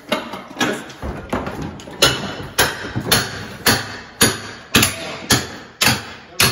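Hammer blows struck in a steady rhythm, about two a second, each hit ringing briefly, as in breaking up a floor during demolition.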